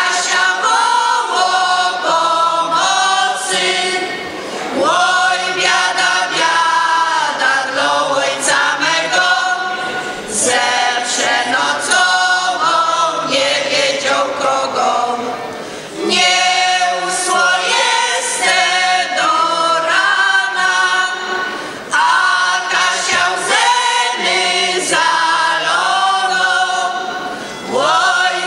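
A mixed folk singing group of men, women and a child singing a traditional folk song unaccompanied. The song moves in phrases of about six seconds, with short breaks for breath between them.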